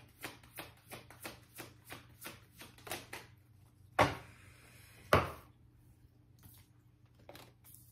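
A deck of tarot cards being shuffled by hand, a soft riffling click about four times a second. Midway come two sharp knocks about a second apart, then only a few faint ticks.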